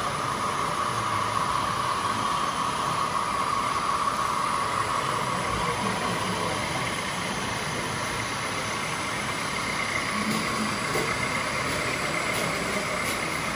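Small electric motor and gearbox of a radio-controlled model vehicle whining steadily over a hiss, with a second, higher whine joining about ten seconds in and a few faint clicks near the end.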